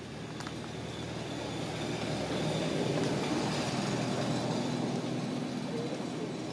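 A motor vehicle passing: a steady engine hum with road noise that swells to a peak about three seconds in and then fades again.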